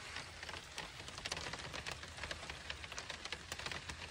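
Steady rain falling on the truck, a dense, even patter of drops, heard from inside the vehicle.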